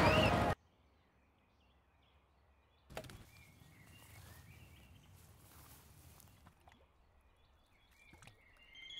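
A loud rush of noise cuts off suddenly half a second in, leaving near silence. About three seconds in, faint outdoor ambience comes in with a few small high bird chirps, then fades.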